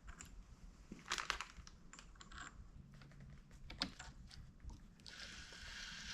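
Faint, scattered light clicks and taps of metal spanner-style chuck key wrenches being handled, with a small cluster about a second in and a soft rustle near the end.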